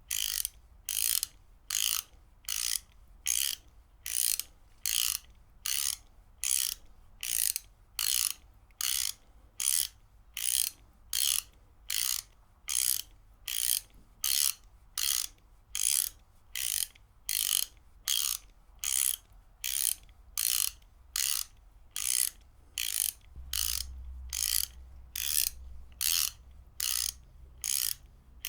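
Ratchet wrench clicking in short rasping bursts, about two a second, in a steady rhythm as the ratchet is worked back and forth.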